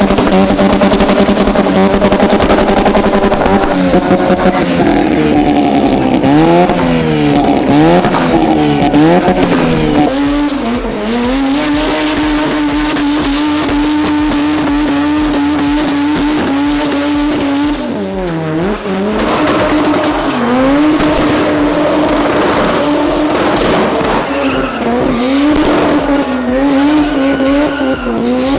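Toyota KE25's 13B two-rotor rotary engine running hard with the distinctive rotary note. Its revs swing quickly up and down for several seconds, then hold high with a few short dips as the throttle is lifted.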